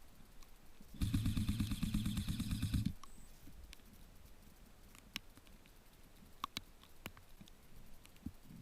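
Airsoft electric rifle firing a full-auto burst for about two seconds, a fast buzzing rattle, followed by a few faint scattered clicks.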